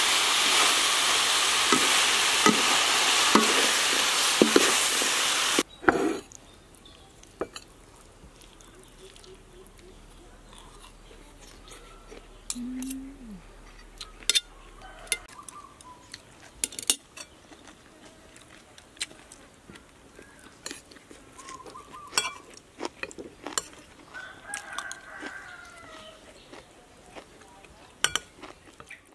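Stir-fry of chicken and vegetables sizzling loudly in a pan with a few utensil ticks, cutting off abruptly after about six seconds. Then spoons and forks clink and scrape on plates and a metal serving tray, in sharp scattered clicks.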